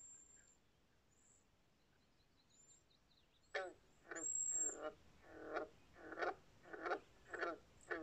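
Faint, short high chirps, then from about halfway a series of about eight short, harsh animal calls, roughly two a second.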